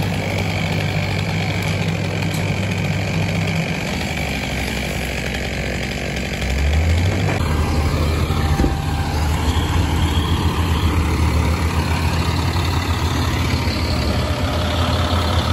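Heavy diesel engine of land-clearing equipment running steadily. It grows louder and deeper about six and a half seconds in.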